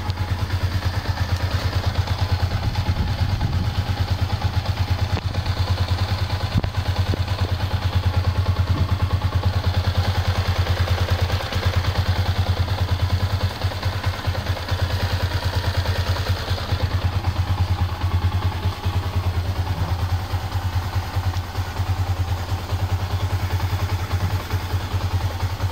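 Yamaha Sniper 150's single-cylinder four-stroke engine idling steadily, just rebuilt with a new cylinder block, piston pin and piston rings. It runs without the noise that prompted the overhaul.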